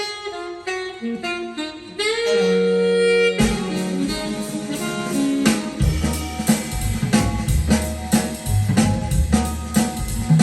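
Big-band jazz played over hi-fi loudspeakers: saxophone and brass lines, with a held horn chord about two seconds in. Bass and drums pick up a steady beat about six seconds in.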